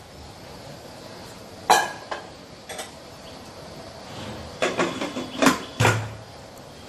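Metal clanks and knocks as the lid of a Prestige Deluxe pressure cooker is set on the pot and closed: a few light clinks first, then a cluster of sharper knocks over the last few seconds, the loudest two close together near the end, the last with a dull thud.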